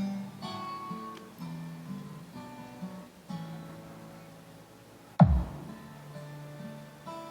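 Recorded music: plucked acoustic guitar intro. About five seconds in, one loud boom sweeps down in pitch.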